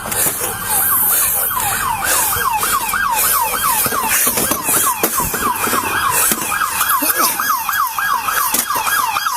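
Emergency vehicle siren in yelp mode: a fast, repeating wail of about four sweeps a second, starting just under a second in.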